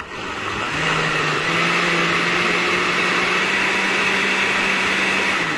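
Countertop blender running, puréeing boiled tomatoes and a garlic clove into a sauce. The motor speeds up over the first second, runs at a steady pitch, then is switched off right at the end and starts to wind down.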